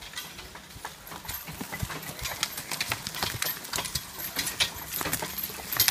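A team of draft horses pulling a log-loading wagon over the forest floor: an irregular clatter of hoof falls, harness and chain clinks, and wagon knocks that grows louder as the team comes closer.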